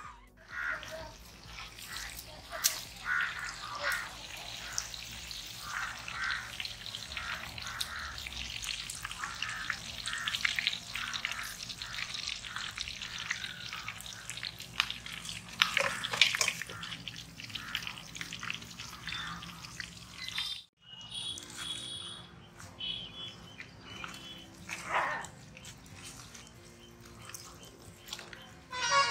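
Whole chicken deep-frying in a large kadai of hot oil: a dense crackling sizzle with many small pops. It cuts off suddenly about twenty seconds in, and soft background music follows.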